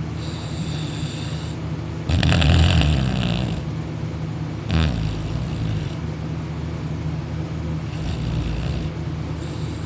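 A young man snoring loudly in his sleep, lying on his back with his mouth open. There is one long rough snore about two seconds in, a short sharp one near the middle, and a softer snore near the end.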